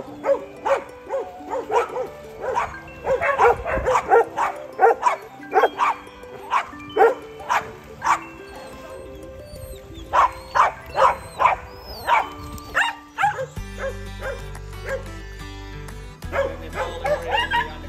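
Dogs barking in quick repeated barks over background music. The barking stops about 13 seconds in, when a deep bass line comes into the music, and starts again near the end.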